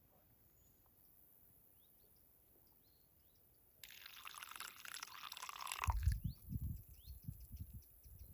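Liquid pouring for about two seconds, starting and stopping abruptly, followed by several low knocks of handling. Faint bird chirps sound throughout.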